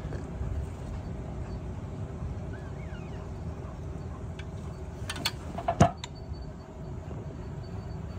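Steady low outdoor rumble, with a cluster of sharp clicks and one louder knock about five to six seconds in.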